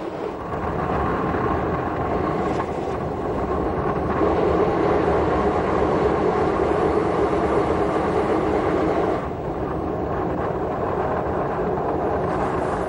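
Electric train of the Bodensee-Toggenburg Railway running along the track: a steady rumble with a constant hum. One strand of the hum stops about nine seconds in, and the whole sound cuts off suddenly at the end.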